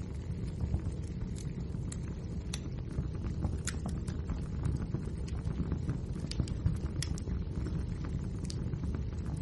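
Wood fire crackling in a fireplace: irregular sharp pops and snaps, a few every second, over a steady low rumble of the burning logs.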